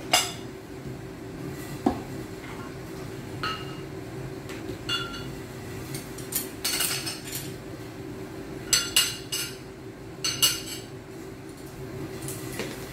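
Ceramic bowls, plates and spoons and metal chopsticks being set down on a table: a dozen or so separate clinks and taps, several with a short bright ring, over a steady low hum.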